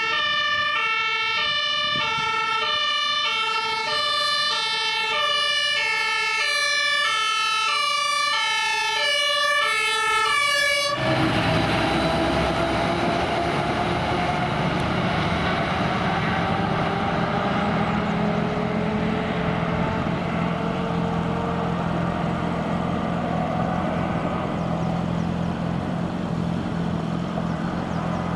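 German two-tone fire engine siren (Martinshorn) alternating between a high and a low note, cutting off suddenly about eleven seconds in. After it, the steady engine and road noise of a fire truck driving, with a low engine hum.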